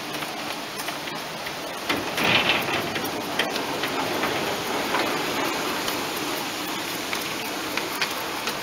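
Small live-steam model locomotive hissing steadily with a light crackle, with a louder surge of hiss about two seconds in and a few faint clicks.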